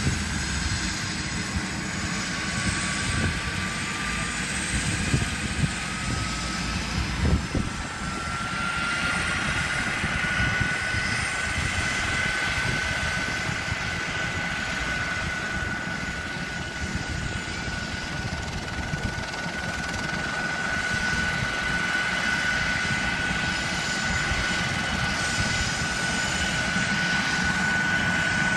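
Airbus H145M helicopter's turboshaft engines whining during start-up. The pitch rises steadily for about the first ten seconds, then levels off and holds steady as the engines settle toward idle, over a low rumble.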